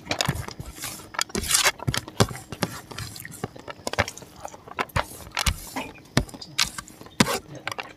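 Close-up eating sounds: wet chewing and lip smacks as a person eats rice and pork gravy by hand, with fingers squelching and scraping rice on the plate. A quick run of sharp clicks and smacks throughout.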